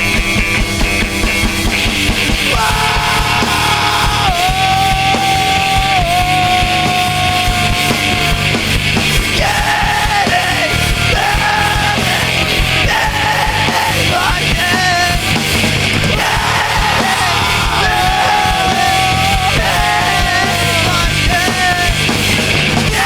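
A punk rock band playing live: distorted electric guitars and drums at full volume, with a high line held and bent in pitch over the top.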